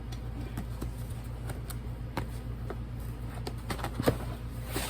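Cardboard box being opened by hand: scattered rustles and a few sharp clicks from the flaps and packaging, over a steady low hum.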